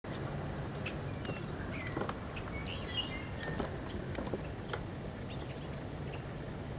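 Small birds chirping in short, high calls scattered through, with a few brief ticks, over a steady low hum.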